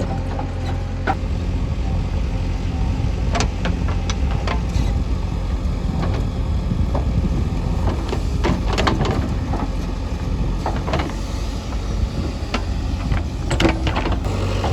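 Heavy diesel machinery engine running steadily, with scattered short knocks and clanks throughout.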